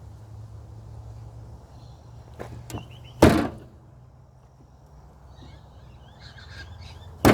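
Hand tools knocking and clicking against the electric chainsaw as a part is worked loose: a few light clicks, then a sharp knock about three seconds in and another at the end, over a steady low hum.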